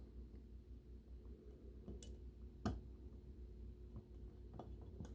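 A few small separate clicks and taps of parts being handled while reassembling a model locomotive's drive truck, the loudest about two and a half seconds in, over a faint steady low hum.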